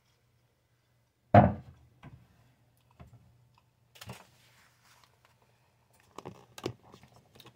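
Kitchen handling sounds: one sharp thump about a second and a half in, then a few lighter knocks and taps as a plate and fork are picked up from the counter.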